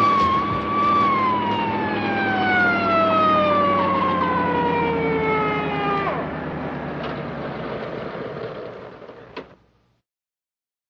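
A siren winding down, its pitch falling slowly for about five seconds over a steady low engine hum. It breaks off about six seconds in, and the remaining hum fades out with a click near the end.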